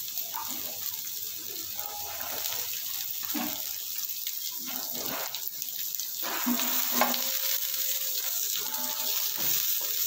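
Chopped red onions and garlic cloves sizzling in hot ghee in a non-stick kadai, with a wooden spatula stirring them near the end.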